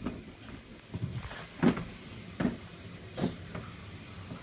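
A series of short, dull knocks and thuds, roughly one every second, over quiet room noise.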